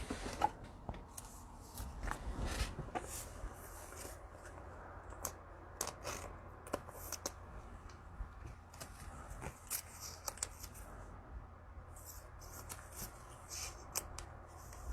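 Football trading cards being handled and flipped through, with many scattered light clicks and snaps. Twice the plastic pack wrapping gives a brief crinkle.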